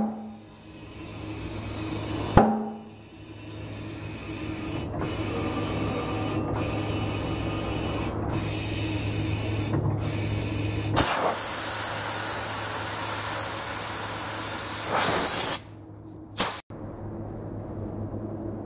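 Tyre-shop background noise: a steady low hum, with a sharp knock at the start and another about two seconds in. Past the middle comes a loud hiss lasting about four and a half seconds that cuts off suddenly, followed by a short click.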